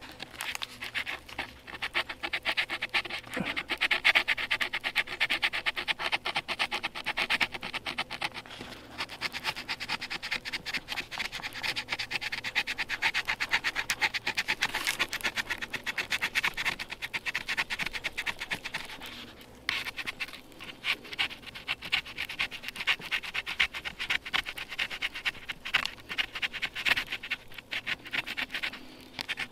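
Knife blade scraping across birch bark in quick repeated strokes, shaving the bark down, with a short pause about two-thirds of the way through.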